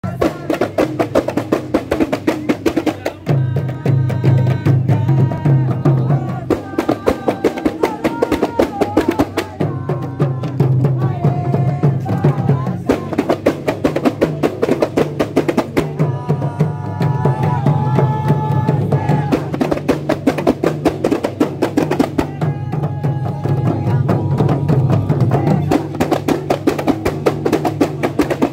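A kompang troupe beating Malay hand-held frame drums in a fast, dense, interlocking rhythm. Men's voices chant along in phrases of a few seconds that come and go several times.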